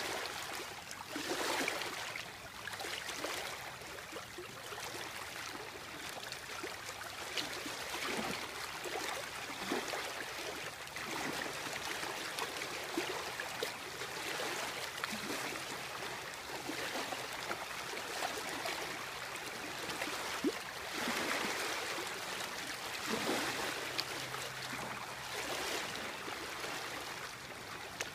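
Small river waves lapping and splashing close by, an irregular wash of slaps and trickles.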